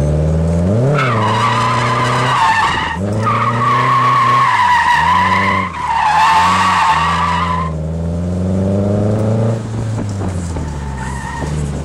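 Nissan 240SX heard from inside the cabin, its engine note rising and falling with the throttle while the tyres squeal as the car slides through the cones. The squeal starts about a second in, breaks off briefly twice and stops a little before the end, leaving the engine alone.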